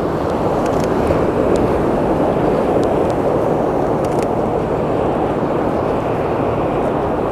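Steady rushing noise of ocean surf, with wind on the microphone, swelling slightly about a second in.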